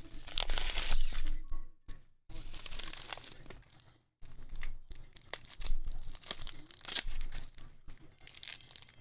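A padded paper mailer is torn open with a loud rip in the first second or so. Rustling, crinkling and sharp little clicks of plastic packaging follow as the contents are pulled out and handled.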